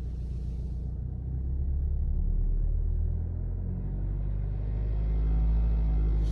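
BMW X3 G01 20d's four-cylinder diesel engine running from cold, with the knock (стук) that appears on a cold engine. The engine note swells a little about a second and a half in and again near the end.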